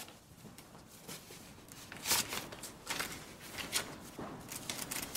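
Faint rustles and light handling noises as papers change hands, a few short ones spread through the stretch over a low steady hiss.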